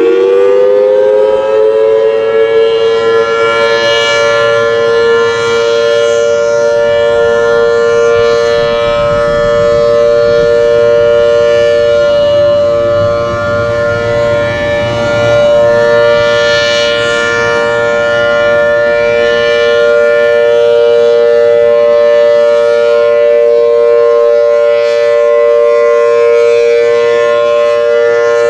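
Federal Signal Thunderbolt 1000T tornado siren sounding its monthly test, reportedly installed in 1959. It finishes winding up in the first second, then holds a steady two-tone chord. The upper notes swell about every four seconds as the rotating head sweeps past.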